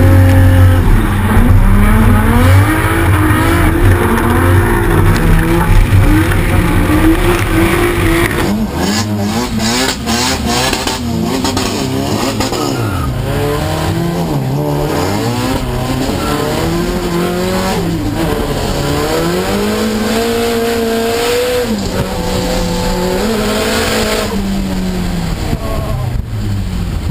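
Drift car engines revving hard, pitch rising and falling again and again as the throttle is worked through slides on a wet track. After about eight seconds the engine is heard from inside the car's cabin.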